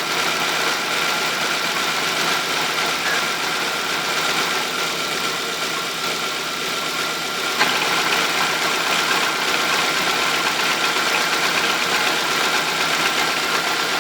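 Chevrolet Celta engine idling with a clutch rattle that the owner likens to a jackhammer. The noise appeared a week after a new clutch kit was fitted. About seven and a half seconds in, the sound changes abruptly and becomes busier and slightly louder.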